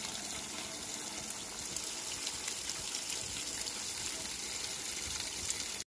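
A stream of water pouring and splashing onto a leafy shrub, a steady hiss of spray with small drops ticking on the leaves. It cuts off suddenly at the end.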